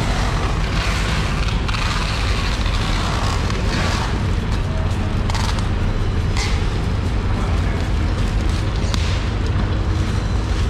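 Broad knife blade scraping the skin off a giant marlin, a brief rasp with each stroke every second or two, over a loud, steady low rumble.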